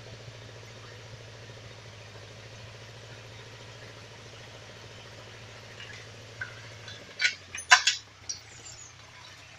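Forestry tractor's engine idling with a steady low hum. About seven seconds in the hum drops lower, and a few sharp metallic clinks and knocks follow close together.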